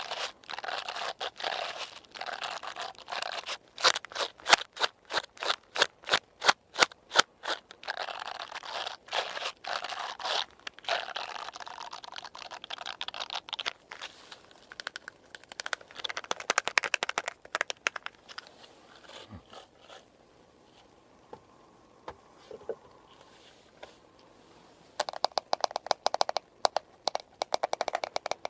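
Close-miked haircut sounds: scissors snipping and a brush scraping through hair in runs of crisp, sharp strokes, at times about three a second. It goes much quieter for a few seconds before the strokes resume near the end.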